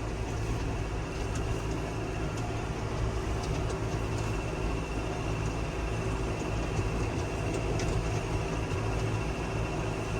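Farm tractor running steadily under way, heard from inside the cab: an even engine hum with a steady whine and scattered faint ticks and rattles.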